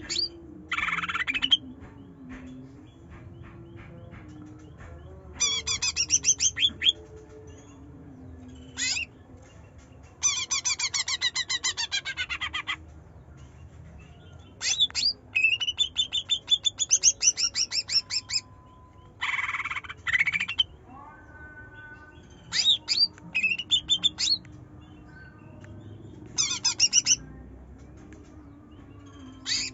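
Cucak ijo (green leafbird) singing in loud bursts of rapid, high, chattering trills and sharp piercing notes, each burst one to three seconds long with pauses of a few seconds between.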